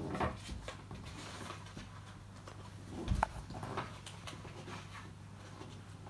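Handling noise from assembling a star-projector lamp's globe: light clicks and rustles as its pieces are handled and bent, with a soft thump about three seconds in.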